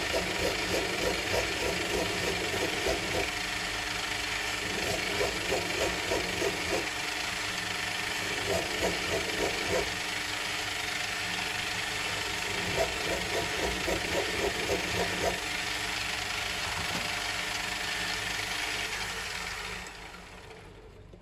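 Small metal lathe running while a vervelle is cut from brass rod, with bursts of rapid rhythmic rattling that come and go. The lathe is switched off near the end and the sound dies away.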